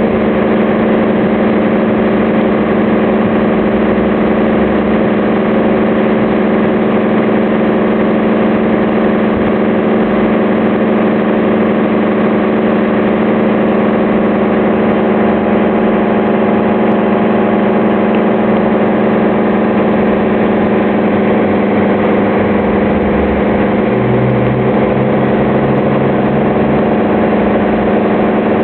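KFC restaurant's kitchen extractor fan running continuously even with the store shut: a loud, steady drone with a strong low hum and several steady tones above it. A deeper hum joins for a few seconds about 24 seconds in.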